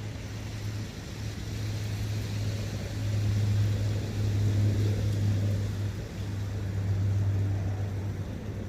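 Forest field recording of a brook and wind: a steady rushing hiss over a deep low rumble that swells and eases in slow gusts.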